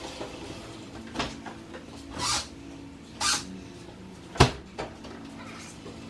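A few scuffing footsteps, then a single sharp clunk from the pickup truck's door about four seconds in, the loudest sound, with a smaller knock just after. A faint steady hum runs underneath.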